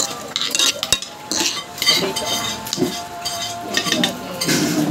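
A metal fork and spoon scraping and clinking against a metal dish as noodles are scooped up, in quick irregular strokes.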